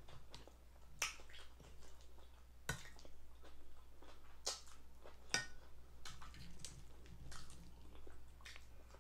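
A person eating fried chicken and sides close to the microphone: chewing with sharp, wet clicks and smacks, the loudest about a second in and a few more spaced a second or so apart after it.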